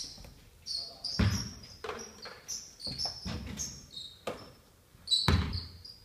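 Basketballs bouncing on a hardwood gym floor, several irregular thumps with a short echo after each, mixed with high sneaker squeaks on the floor.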